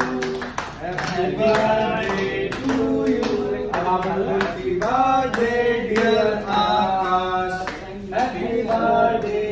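Male voices singing a melody over steady, rhythmic hand-clapping.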